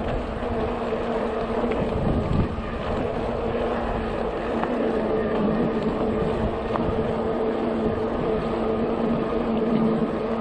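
Steady riding noise from an electric bike on the move: wind on the microphone and tyre rumble, with an even hum that holds one pitch.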